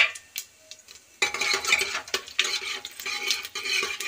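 Whole spices (green cardamom and cumin) in hot oil in an aluminium pressure cooker: a sizzle starts suddenly about a second in and keeps going, with light clinks of metal against the pot.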